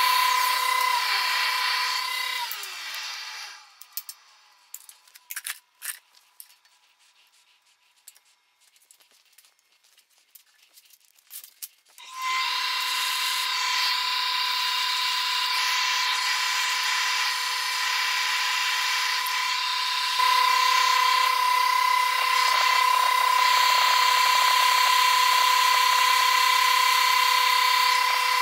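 Angle grinder whining steadily, then spinning down about three seconds in. A quiet stretch with a few light clicks and knocks follows, then the grinder starts again about twelve seconds in and runs steadily, a little louder from about twenty seconds in.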